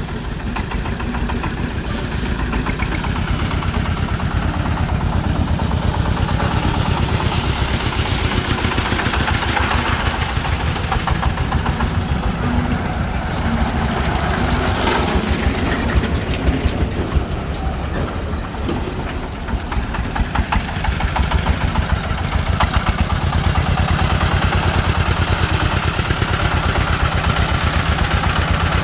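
Diesel engine running steadily with a fast, even chugging beat, swelling louder for a few seconds around the middle.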